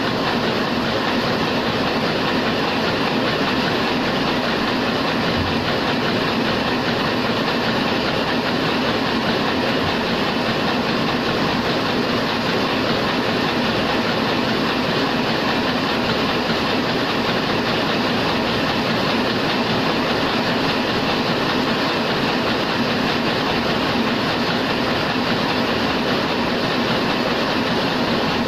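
Heidelberg SORMZ two-colour sheetfed offset press running at production speed: a steady, dense mechanical clatter from its cylinders, grippers and sheet feed.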